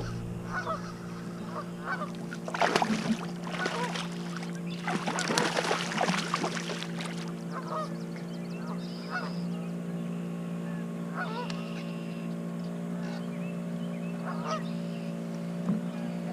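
Geese honking in clusters, loudest around three seconds in and again a little past the middle, with smaller calls in between. A steady low hum runs underneath.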